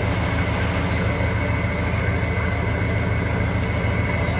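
Boat engine idling steadily: an even, low drone with a thin constant whine above it.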